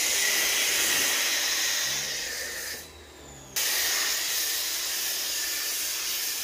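A foam cannon sprays a steady hissing jet of soap foam onto car paint. The spray cuts off briefly about three seconds in, then starts again.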